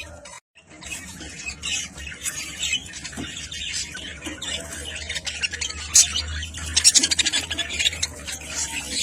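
A group of budgerigars chattering and squawking continuously, a dense mix of warbles and sharp chirps, briefly cut off just after the start.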